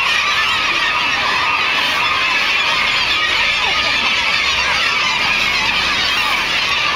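A seabird colony calling from the cliffs: a dense, steady chorus of many overlapping high calls.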